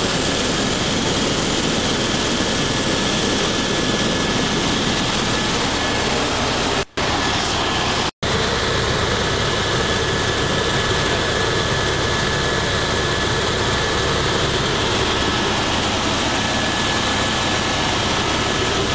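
Helicopter engine and rotor noise heard from inside the cabin in flight: a loud, steady noise with a thin high whine running through it. It cuts out briefly twice, about seven and eight seconds in.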